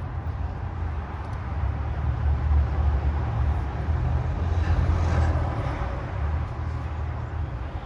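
A steady low rumble of a vehicle engine running, with a little more hiss about five seconds in.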